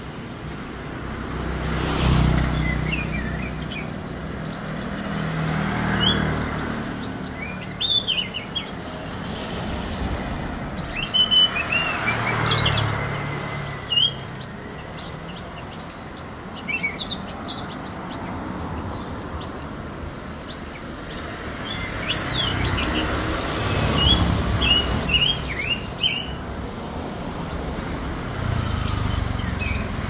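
Many caged songbirds chirping and calling together in short, sharp notes and trills. Passing road traffic swells and fades underneath several times.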